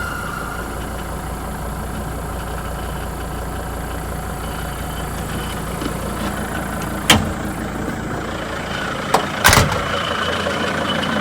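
T1N Sprinter van's engine idling steadily with the strange noise of a harmonic balancer that has just failed. Sharp knocks sound about seven seconds in and twice more near the nine-second mark.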